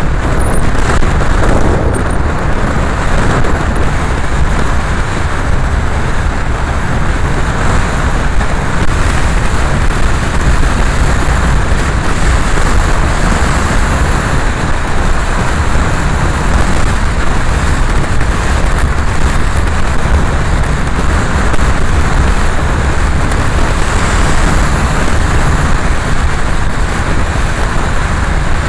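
A car driving at steady speed: continuous engine and road noise, with tyre noise from the wet road surface.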